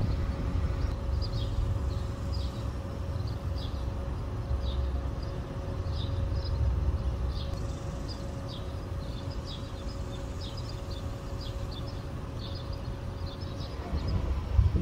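Trackside outdoor ambience as a train approaches from far off: a steady low rumble and a faint steady hum, with small birds chirping in short calls many times over.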